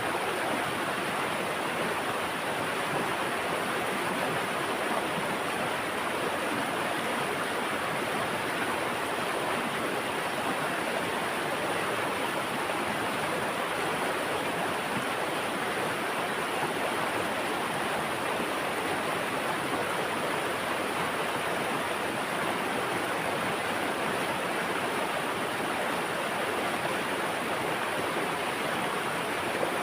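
Running water rushing steadily, an even, unbroken noise with no changes.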